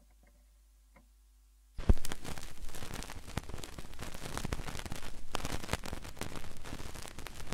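Stylus touching down on a spinning 12-inch vinyl record with a thump about two seconds in, then the run-in groove crackling with surface noise and pops. Before the touchdown, near silence with a few faint clicks.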